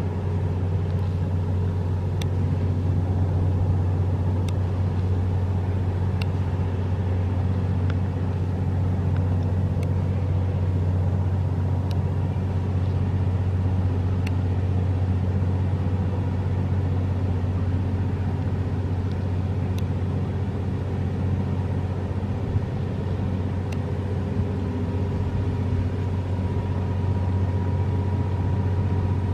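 Steady low drone of a boat's engine running at constant speed, with a faint steady hum higher up and a few faint ticks.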